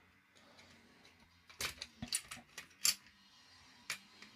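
Loose parts of a disassembled toy bubble gun being handled: a handful of light clicks and clatters in the second half, the sharpest a little under three seconds in.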